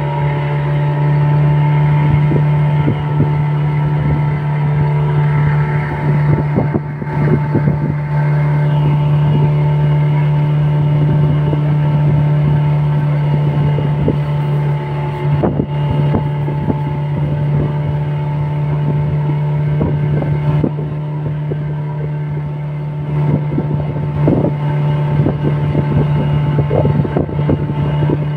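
A tour boat's engine running at a steady, unchanging pitch, with water slapping against the hull now and then and some wind on the microphone.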